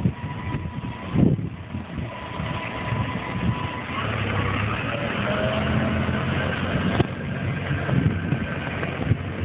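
Claas Arion 520 tractor's diesel engine running as the tractor pulls away, a steady engine hum that grows firmer about four seconds in. A thin steady whine sits over it for the first few seconds, and there is a single sharp click about seven seconds in.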